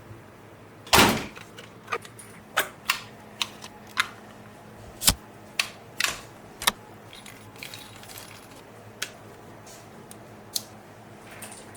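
Irregular sharp clicks and knocks of hands handling a boxed RC monster truck and its plastic and cardboard packaging during unboxing, about a dozen in all. The loudest and longest comes about a second in, and they thin out over the second half.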